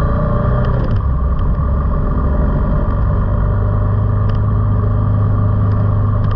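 Road vehicle on the move: a steady low drone of engine and road noise, with a few faint ticks.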